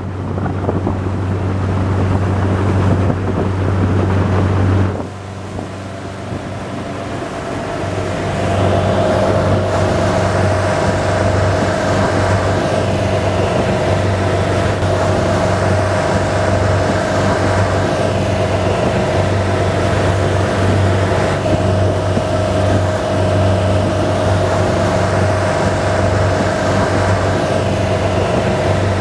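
Engine of a 140-horsepower Sea Ray ski boat running under way, with wind on the microphone and water rushing past the hull. The sound dips briefly about five seconds in, then picks up and runs steadily with a held whine as the boat travels at speed.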